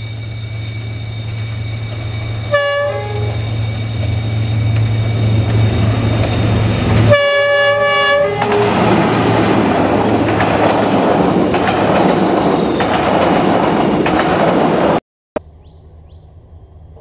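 D19E diesel-electric locomotive hauling a passenger train, its engine droning steadily. It sounds a short horn blast about two and a half seconds in and a longer chord on the horn at about seven seconds, then the loud rush and clatter of the train passing on the rails. The sound cuts off abruptly near the end, leaving a quieter background.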